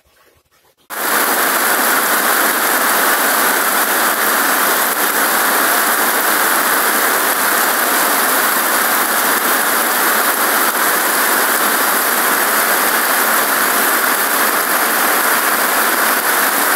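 Heavy rain falling steadily onto a pond of water plants and leaves, cutting in abruptly about a second in.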